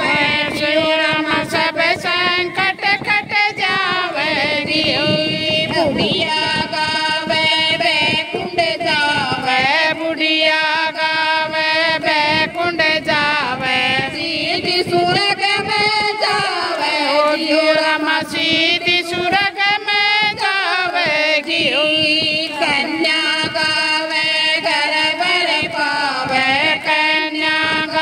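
A group of women singing a Hindi devotional bhajan in unison, a lead voice on a microphone with the others joining in, with hand claps keeping time.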